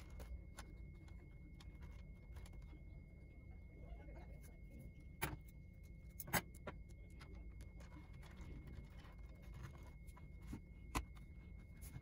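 Faint handling of electrical tape being cut with scissors, with a few small clicks and two sharper snips about five and six seconds in, over a low steady hum.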